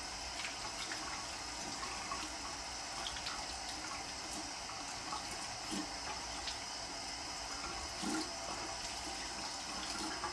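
Bathroom sink faucet running steadily as hands are washed under the stream, with small splashes now and then.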